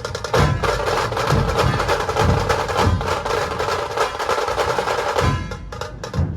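Dhol tasha ensemble playing: deep dhol strokes about every half second under a dense, rapid tasha roll, which thins to separate sharp strokes about five seconds in.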